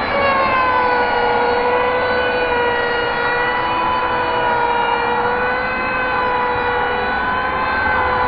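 A steady, siren-like drone of several held tones, dipping slightly in pitch about a second in, over a low rushing noise.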